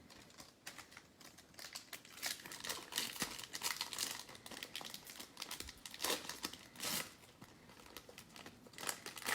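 Foil trading-card pack wrapper crinkling and tearing as a pack is ripped open, in irregular sharp crackles and rustles.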